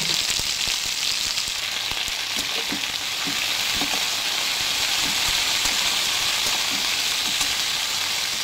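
Chopped okra sizzling steadily in hot oil in a metal kadhai, stirred with a spatula that knocks and scrapes against the pan now and then.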